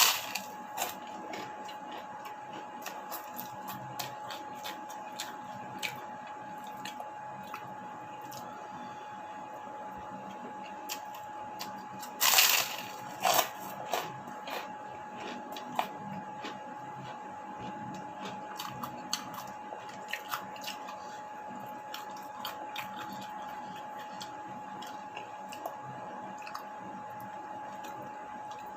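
Close-up eating sounds: chewing and crunching, with many small clicks and a louder clatter about twelve seconds in, over a steady high-pitched hum.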